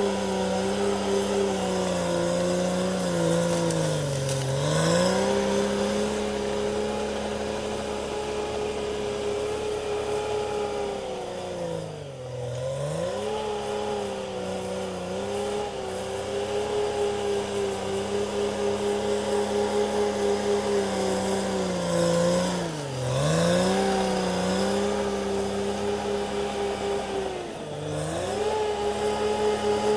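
Caterpillar D6R XL bulldozer's diesel engine running steadily, its pitch sagging briefly and recovering four times as the blade loads up with soil.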